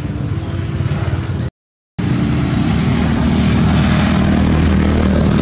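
A steady engine drone; the sound cuts out completely for about half a second and comes back a little louder.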